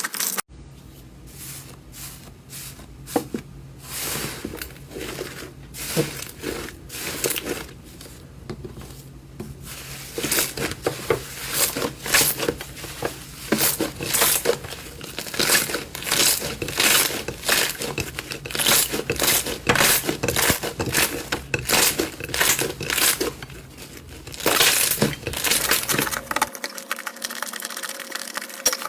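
Hand squeezing and pressing slime, making irregular sticky popping and crackling sounds. They come sparsely at first and grow dense after about ten seconds.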